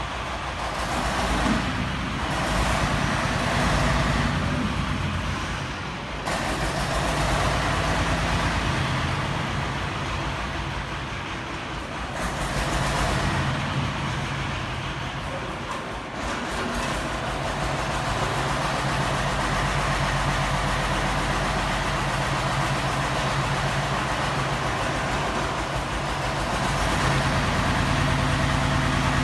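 Engine of a self-loading concrete mixer running, its speed and pitch shifting up and down several times.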